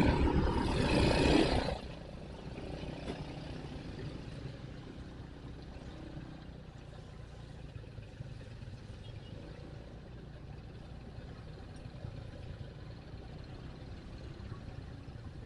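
A loud rush of noise for the first two seconds, then a motorcycle engine running steadily at low revs.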